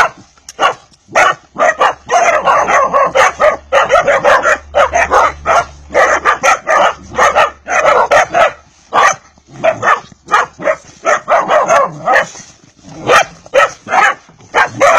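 Several Vizsla puppies barking and yipping over one another, a rapid string of short, high barks with hardly a pause.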